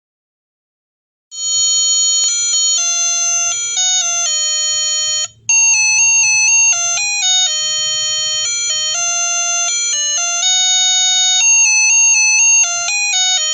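A UM66 melody IC doorbell circuit playing its built-in tune through a small speaker: a simple electronic melody of buzzy beeping notes stepping up and down in pitch. It starts about a second in, with a brief break near the middle.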